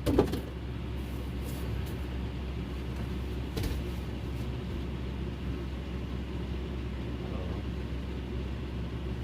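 Steady low mechanical rumble, like a running motor, with one faint tap about three and a half seconds in.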